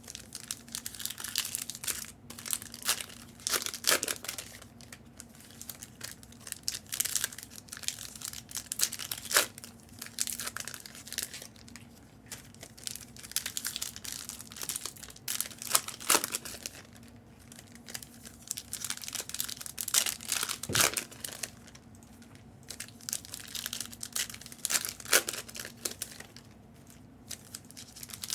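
Trading-card pack wrappers being torn open and crinkled by hand, in irregular bursts of rustling with a few sharp clicks.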